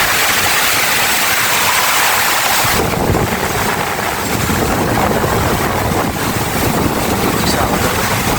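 Storm of heavy rain and strong gusting wind, a loud steady hiss. About three seconds in the hiss falls back and low wind buffeting on the microphone takes over.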